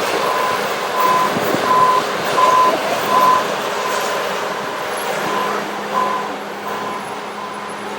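A vehicle's reversing alarm beeping steadily, one high tone about every 0.7 seconds, over a running engine. About halfway in, a low steady engine drone joins.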